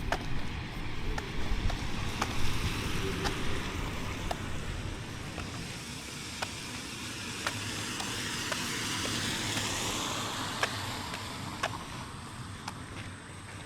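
A car passing on a wet road, its tyres hissing as they swell and fade about two-thirds of the way through, over a steady wet hiss and low traffic rumble. Sharp light ticks recur about once a second.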